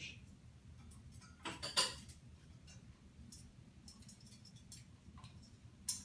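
African grey parrot clambering on its wire cage, its beak and claws clicking and tapping on the metal bars. The taps are scattered, with a louder cluster about a second and a half in and a single sharp click near the end.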